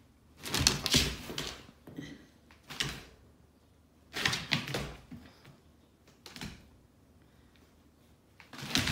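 A playing dog on a hardwood floor: several short bursts of clattering knocks and scuffling from its paws and claws, with quiet gaps between them.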